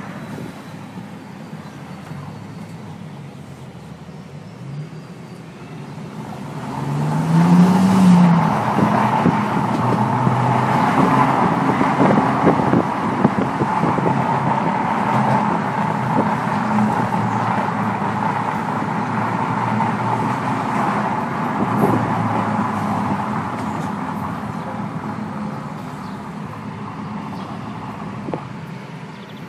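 Bentley Continental GTC Speed's twin-turbo W12 heard from inside the open-top cabin: running quietly at first, then about seven seconds in it revs up hard under full-throttle acceleration. It stays loud for a long stretch before gradually easing off near the end.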